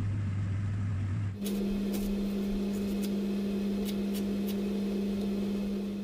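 A kitchen knife slicing onion on a plastic cutting board, tapping the board several times at uneven intervals. Under the taps is a loud, steady appliance-like hum, which jumps to a higher pitch about a second and a half in.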